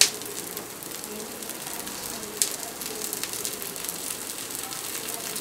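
Oil sizzling and crackling around jaggery paniyaram batter frying in the wells of a paniyaram pan. Two sharp clicks come through it, one at the start and one about two and a half seconds in.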